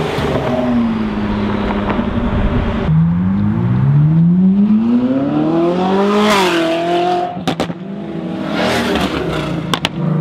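Supercar engines pulling away past the curb in quick succession: a Ford GT's twin-turbo V6 passes close, then a Ferrari revs up steadily for about three seconds, shifts and holds, then another car accelerates away near the end.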